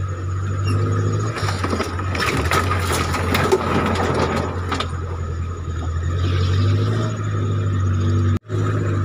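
Off-road 4x4's engine running steadily at low speed as it crawls through a stony riverbed, with a rough crackling and scraping from the tyres on rocks and water for a few seconds in the middle. The sound cuts out for an instant near the end.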